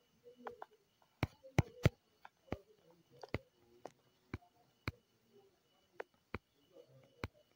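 Irregular sharp clicks, about a dozen, spaced unevenly: fingers tapping and scrolling on a phone's touchscreen. Faint low murmuring sounds come between the clicks.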